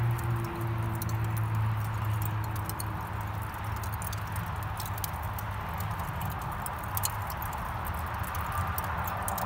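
Lump charcoal burning in an open charcoal grill, crackling with irregular sharp pops over a steady low hum.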